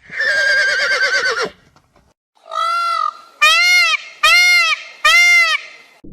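A horse whinnying, a warbling call lasting about a second and a half, then after a short pause four short honking calls, each rising and falling in pitch, the last three quick and evenly spaced.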